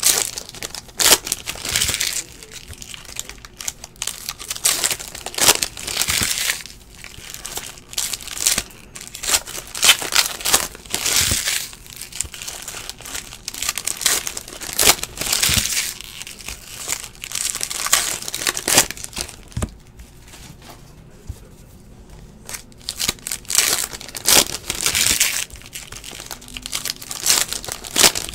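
Foil trading-card pack wrappers crinkling and tearing open, with 2017-18 Donruss basketball cards being flicked and shuffled between them. The rustling comes in irregular bursts every second or two.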